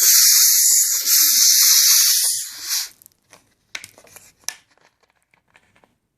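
Carbonation gas hissing out of a 1.9-litre plastic Pepsi-Cola bottle as its screw cap is twisted open. It is a loud hiss in two spells with a short dip after about a second, stopping about three seconds in, then a few small clicks and taps.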